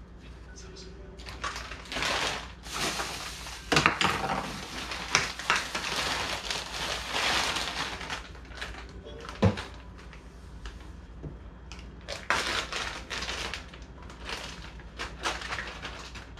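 Rustling of a bag being handled, with small makeup items clicking and knocking as they are sorted and packed; a sharp knock comes a little before the middle.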